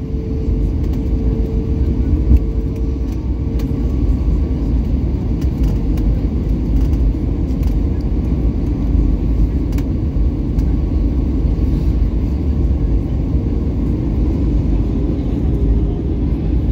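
Cabin noise inside an Airbus A321 on approach: a steady low rumble of engines and airflow with a steady hum tone over it that fades briefly a few seconds in and comes back.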